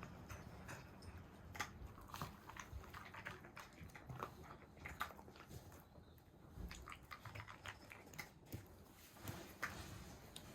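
A dog chewing and biting, with many faint, irregular crunches.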